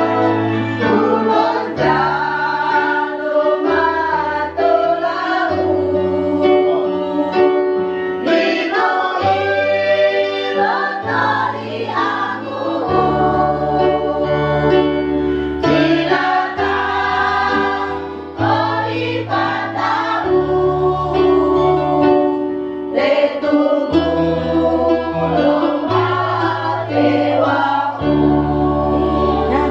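A small women's choir singing a song together, accompanied on a Yamaha PSR-S775 electronic keyboard, whose bass line steps to a new note every second or two under the voices.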